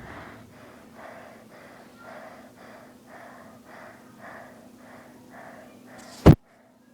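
Rapid, even panting breaths, about three a second, over a faint steady hum. Near the end a sharp loud click, after which the sound cuts out.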